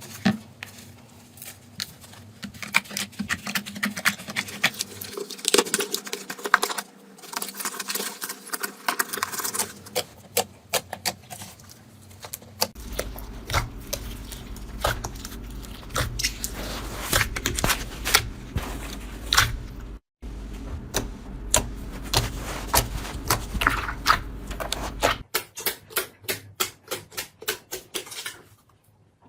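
Slime being squeezed and poked by hand, giving dense sticky crackles and clicks in several short clips cut one after another. Near the end the clicks come evenly, about three a second.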